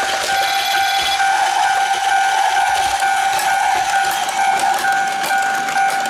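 Electronic level-crossing warning beeps from a Plarail toy automatic crossing, repeating about twice a second, over the whirr and rattle of a battery-powered Plarail N700 Shinkansen train running on plastic track.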